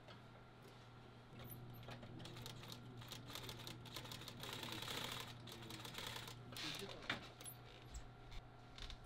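Industrial sewing machine stitching heavy canvas: its motor starts humming about a second and a half in, then the needle runs in a fast, even clatter of clicks for several seconds, loudest in the middle, before slowing near the end.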